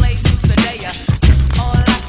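Recorded music with a heavy bass beat and a rap-style vocal, played from records.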